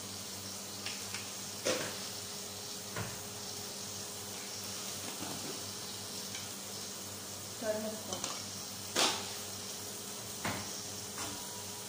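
Iron kadai of potatoes, spice powders, oil and a little water sizzling steadily over a gas burner, a constant hiss with a few sharp clicks, as the sambar base starts to cook toward the boil.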